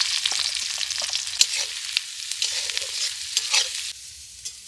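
Chopped red onions sizzling loudly in hot oil with cumin seeds in a metal kadai, with sharp clinks and scrapes of a metal spatula stirring them. The sizzle drops to a quieter hiss about four seconds in.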